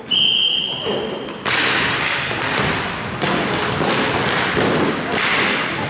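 A referee's whistle blows one steady blast of about a second and a half. Then comes the noise of play: inline skate wheels rolling on the hall floor, with stick and puck knocks and thuds.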